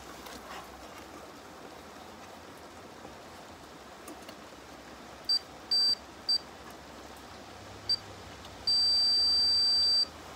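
Multimeter's continuity beeper sounding as the probes touch a popcorn maker's heating element: four short, broken beeps, then one steady high beep lasting over a second near the end. It shows the element has continuity.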